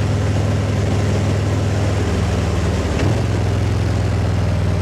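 Harley-Davidson Ultra Limited's V-twin engine running at a cruising speed of about 90 km/h, with wind rushing over a helmet-mounted wireless mic with a furry windshield. The engine note drops slightly about halfway through, with a brief click about three seconds in.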